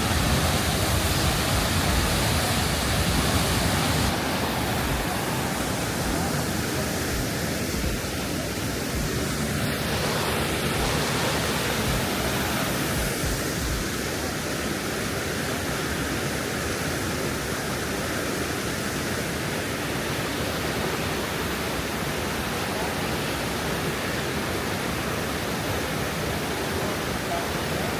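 Waterfall: the steady, even rush of fast-flowing falling water.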